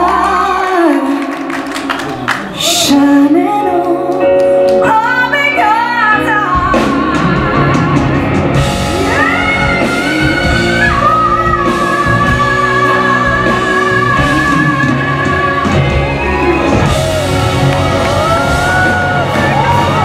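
Female pop singer belting a ballad into a handheld microphone with a live band, recorded from the audience. The accompaniment is sparse at first while she sings quick melismatic runs, then the full band with bass and drums comes in about six and a half seconds in, and she holds a long high note with vibrato.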